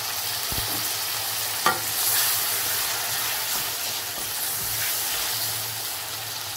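Onions and fresh chopped tomatoes sizzling in hot oil in a metal karahi as a wooden spoon stirs them, with one sharp knock of the spoon against the pan a little under two seconds in.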